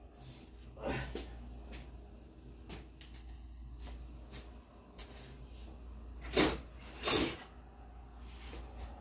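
Hand tools clinking and knocking against metal under the truck: scattered light clicks, then two louder clanks about six and a half and seven seconds in, the second ringing briefly.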